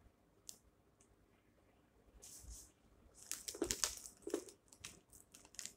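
A plastic snack packet crinkling and rustling as it is handled, in short scattered crackles that come mostly in the second half.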